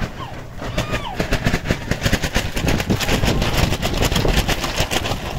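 Rain drumming hard on the shelter's covering, a dense rapid patter of drops that grows heavier after about a second.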